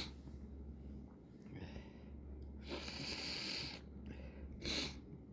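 A person in a sneezing fit: shaky breathing, a long noisy breath in about three seconds in, then one short, sharp sneeze near the end.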